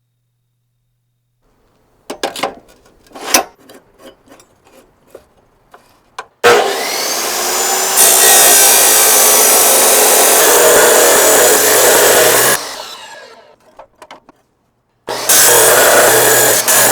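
A few clicks and knocks, then a power tool spins up with a rising whine and runs loud and steady for about six seconds as it works the steel of a wrench, winding down afterwards. It starts again for a second loud run near the end.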